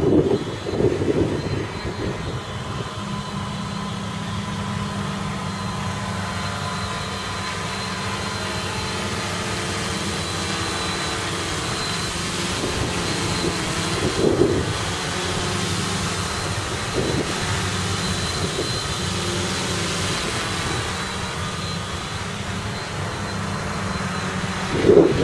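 HB7 CFo1 FPV multirotor's electric motors and propellers whirring steadily in flight. The whir starts about two seconds in and stops near the end as the craft sits down on the grass. Gusts of wind hit the microphone at the start, once midway and at the end.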